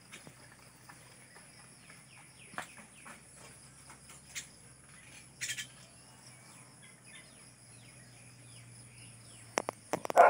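Small birds chirping in short, scattered falling calls over a steady high-pitched whine, with a few sharp knocks near the end.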